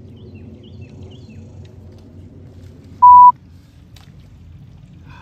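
A single short censor bleep about three seconds in: one steady pure beep, by far the loudest sound. Under it is a faint low background rumble.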